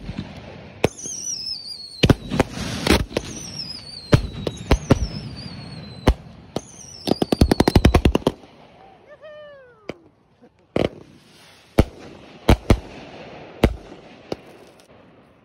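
Firework cake firing: shots launch with falling whistles, then a rapid string of cracks about ten a second lasting just over a second, followed by a few single loud reports.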